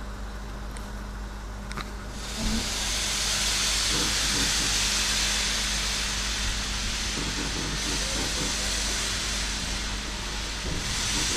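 Steam locomotive hissing steadily as it pulls the train away, starting about two seconds in.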